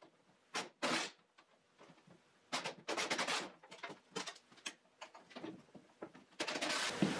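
Cordless power tool run in several short bursts of under a second each, backing out the bolts of a truck frame cross brace.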